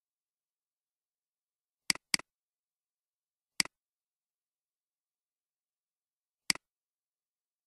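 Computer mouse button clicks in otherwise dead silence: a quick double-click about two seconds in, then two single clicks, a second and a half later and again near the end.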